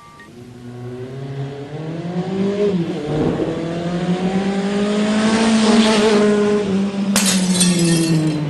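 A motor vehicle's engine revving and passing by, its pitch climbing, swelling to a peak and then falling away. A sudden sharp crack comes about seven seconds in.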